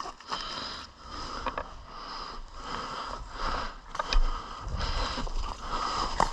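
A person breathing hard in repeated noisy breaths, with rustling, and a low thump about four seconds in.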